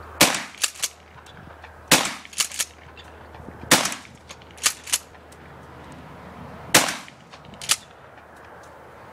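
Mossberg 590 pump-action shotgun fired four times, the last shot after a longer pause. Each shot is followed by quick mechanical clacks of the pump being racked to chamber the next shell.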